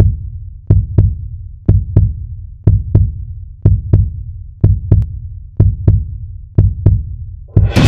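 Heartbeat-like sound effect of deep thumps in pairs, one pair about every second, each thump ringing out low and briefly, over a film-leader countdown. Music with bowed strings and double bass comes in near the end.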